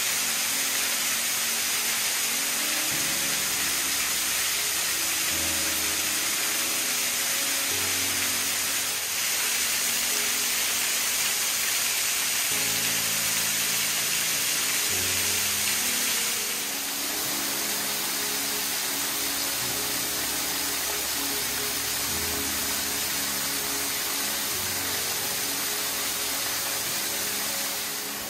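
A small waterfall pouring onto rocks: a steady rush of falling water. Under it, background music of slow, sustained low notes changes every second or two.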